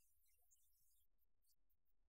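Near silence: only a faint low hum and hiss.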